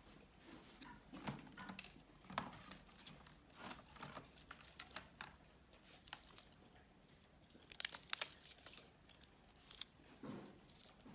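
Faint scattered clicks, taps and scrapes of small tools and plastic laptop parts being handled, with a quick run of sharper clicks about eight seconds in.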